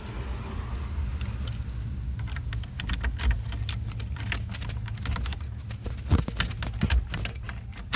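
Keys jangling and clicking in the reinstalled ignition lock of a 1988 Chevy C1500 steering column as the key and column are worked. A steady low hum runs underneath, and a louder knock comes at the very end.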